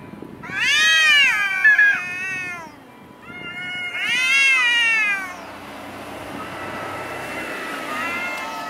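Domestic cats in a face-off giving aggressive territorial yowls, the warning calls before a cat fight. There are two loud, long wavering yowls, about half a second in and again about three seconds in, then a quieter, lower wail that lasts about three seconds.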